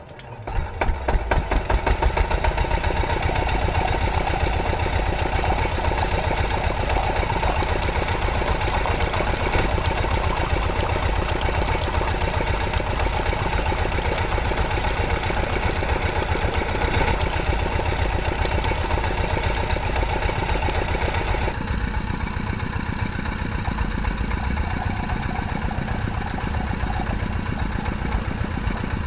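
Single-cylinder diesel engine chugging as it starts up, the rapid beat building over the first two seconds, then running steadily at a fast even pulse. About three quarters of the way through the sound turns duller and slightly quieter.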